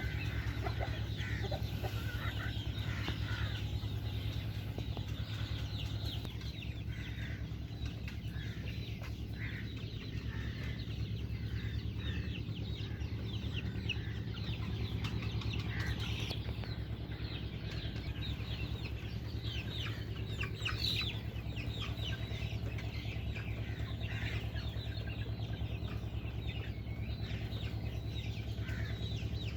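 A flock of chickens clucking and chirping, many short overlapping calls throughout, over a steady low hum.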